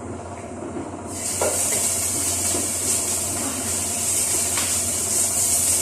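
Minced ginger sizzling in hot coconut oil in a pan, a steady loud hiss that starts about a second in as the ginger goes into the oil.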